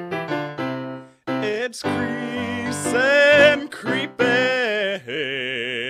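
Song with piano accompaniment: a few short piano chords, then a singer holding long notes with a wide vibrato.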